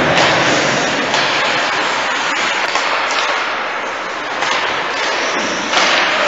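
Ice hockey play in a rink: a steady hiss of skate blades on the ice, with a few light stick or puck taps.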